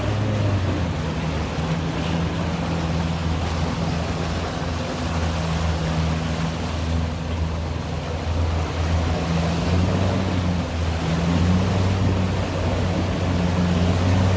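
A boat's motor running with a steady low hum that wavers now and then, over the rush of choppy water and wind.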